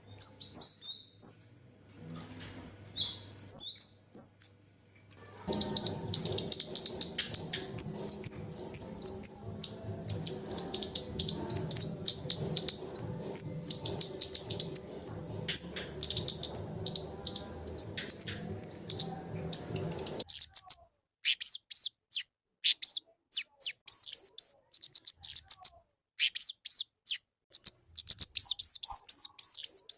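Kemade songbird singing vigorously: fast runs of high, sharp chirps and trills. A steady low background noise sits under the song from about five seconds in until about twenty seconds in, then stops.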